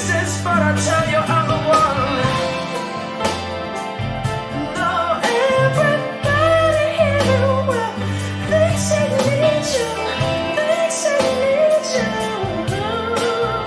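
Rock/folk song playing: guitars over a steady bass line, with a melody that glides and bends in pitch.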